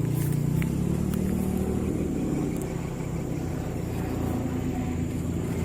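Helicopter rotor and engine noise, a steady low drone, as the helicopter circles on its approach to land.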